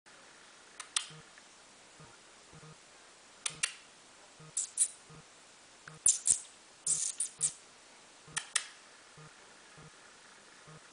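A person making short kissing squeaks to rouse a sleeping cat, mostly in quick pairs, about six times. A faint low tick repeats evenly underneath.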